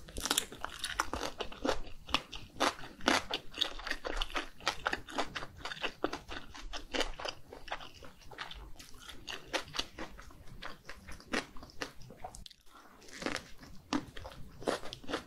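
Close-miked chewing of mini gimbap, the seaweed-wrapped rice roll, with crisp, crunchy, wet mouth sounds. There is a short pause about three-quarters of the way through, then a fresh bite starts the crunching again.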